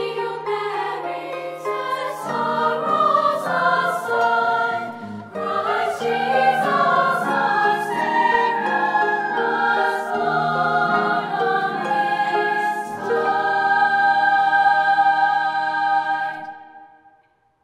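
Choir singing a Christmas carol, closing on a long held final chord that fades out near the end.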